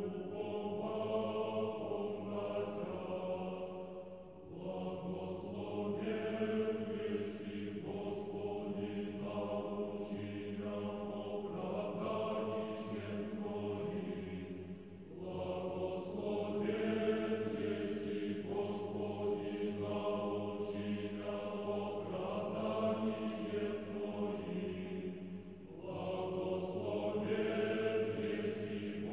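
A choir singing slow Orthodox-style liturgical chant in long held phrases, pausing briefly between phrases three times.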